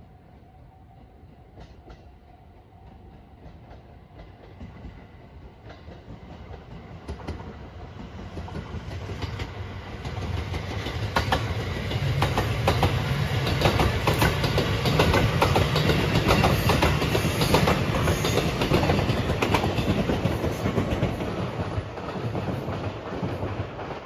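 Marine Liner electric multiple-unit train, with a double-deck car, approaching and running past close by. It grows louder over the first ten seconds or so, then the wheels clack over rail joints in a steady run of clicks while it passes, and it fades in the last few seconds as it moves away.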